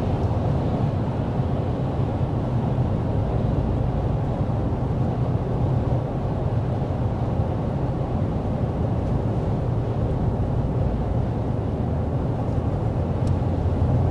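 Steady cabin noise inside a 2024 GMC Sierra 1500 Denali Ultimate pickup cruising at 55 mph, mostly a low rumble, which reads 59.1 decibels on a sound level meter.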